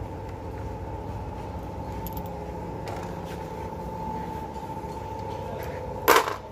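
Steady machine hum of a car repair shop, with a constant whine over a low rumble. A single brief, loud, sharp noise sounds near the end.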